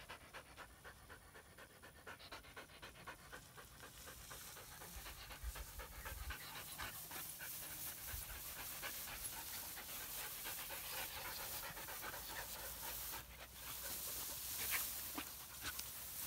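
Belgian Malinois panting quickly and evenly, then rustling and crackling through tall grass from about four seconds in, a little louder.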